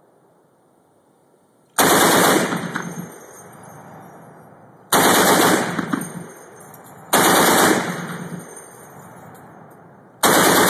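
A .50-calibre machine gun on a remotely operated ROSAM mount firing four short bursts of about a second each, the first about two seconds in and the last starting near the end, each followed by its echo dying away.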